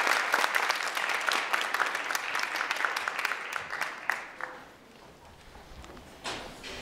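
Audience applauding in a hall, the clapping thinning out and dying away about four and a half seconds in.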